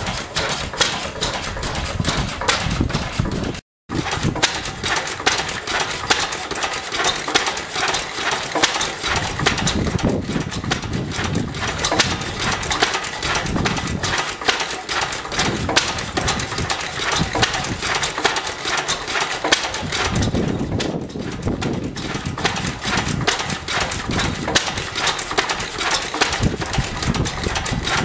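Vintage Lister single-cylinder stationary engines running, a rapid mechanical clatter with uneven low exhaust thumps. The sound drops out briefly about four seconds in.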